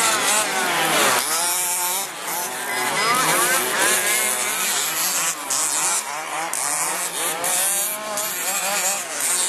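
Several radio-controlled off-road trucks racing on a dirt track, their motors whining and repeatedly rising and falling in pitch as they speed up and slow down through the turns.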